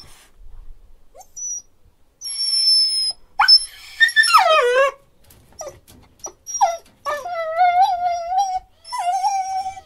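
Dog whining: a thin, high-pitched whine about two seconds in, then a quick cluster of whines sliding down in pitch, then a longer wavering whine and another starting near the end.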